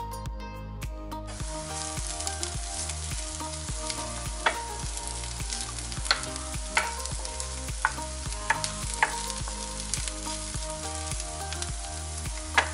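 Chopped onions sizzling as they fry in a nonstick pan, starting about a second in, while a wooden spoon stirs them and knocks against the pan several times. Background music plays throughout.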